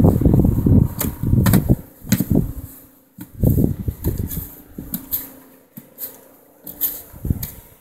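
Plastic snow shovel digging and scraping snow off front steps in irregular strokes, with a few sharp knocks of the blade, mixed with wind buffeting the microphone.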